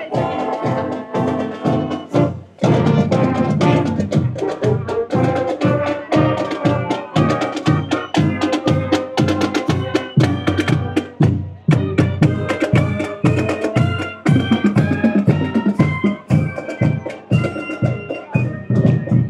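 Marching band playing brass instruments over a steady drum beat.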